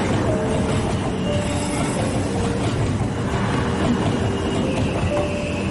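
JR Central HC85 series hybrid diesel train moving slowly past with a steady rumble, with short, faint squeals now and then.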